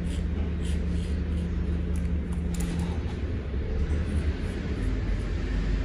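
A straight razor scraping over a lathered scalp in short strokes, over a steady low rumble with a hum that stops about halfway through.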